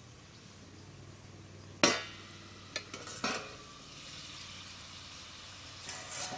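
A metal lid clanks sharply once against the rim of a karai as it is lifted, followed by a few lighter metal clinks. Crab masala curry sizzles steadily in the pan, a little louder once the lid is off.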